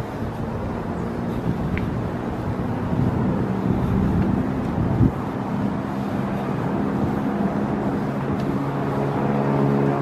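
Steady outdoor hum of distant vehicle traffic, with a single thump about five seconds in.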